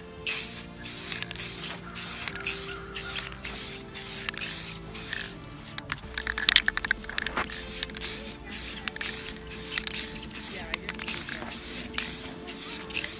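Aerosol spray can of Rust-Oleum Crystal Clear Enamel hissing in short repeated bursts, about two a second, laying a clear coat over fresh red paint.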